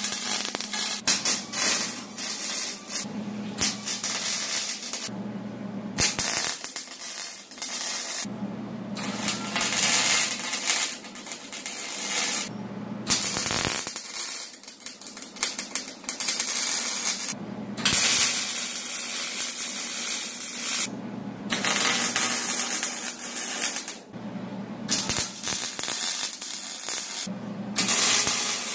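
Miller wire-feed welder arc crackling and hissing as the steel tube frame is welded. It comes in a string of welds a few seconds long each, with short breaks between them.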